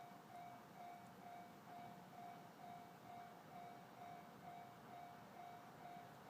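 Japanese level-crossing warning alarm ringing faintly, a single tone repeating about twice a second, the signal that a train is approaching.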